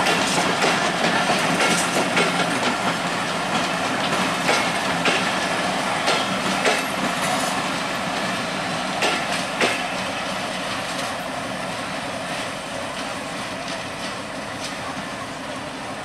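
Express passenger train coaches rolling past, their wheels clicking over the rail joints in an irregular clickety-clack over a steady rumble, the sound slowly fading as the train draws away.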